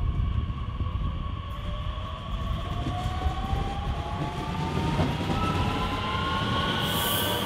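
DB class 442 Talent 2 electric multiple unit approaching on the rails: a low rumble of wheels with the electric traction drive's whine climbing slowly in pitch as the train gathers speed. A brief high hiss comes near the end as it nears.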